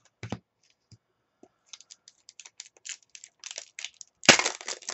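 A light tap at the start, then the crackle and rustle of a foil trading-card pack being handled, and a loud crinkling rip about four seconds in as the wrapper is torn open.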